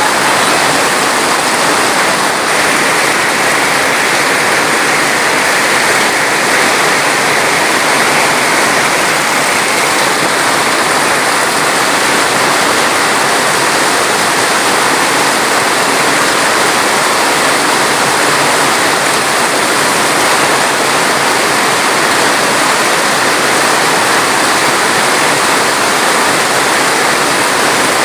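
Steady, loud rushing of water, even and unbroken throughout.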